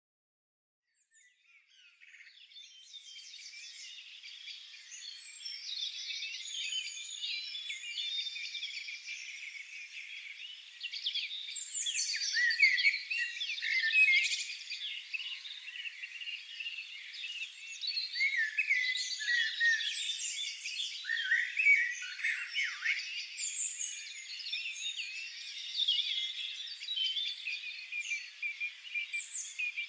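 Several songbirds singing at once: a dense chorus of overlapping chirps, trills and quick whistled glides. It fades in over the first few seconds.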